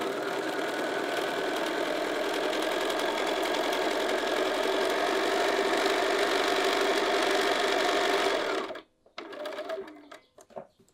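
Bernina sewing machine stitching steadily at an even speed. It stops suddenly near the end, and a few faint short handling sounds follow.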